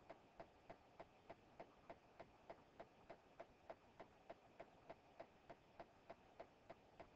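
Faint, even ticking, about three ticks a second, over a low background hiss.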